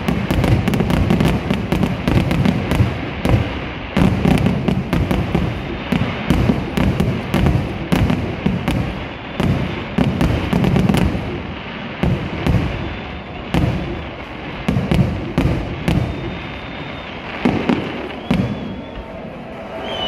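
Aerial fireworks going off: a rapid, irregular run of bangs and crackles over a low rumble, thinning out near the end.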